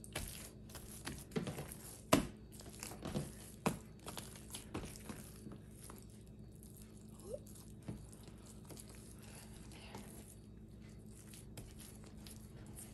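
Hands patting, pressing and folding soft white bread dough on a wooden butcher-block counter. A scattering of soft slaps and knocks comes in the first few seconds, then only faint handling sounds over a low steady hum.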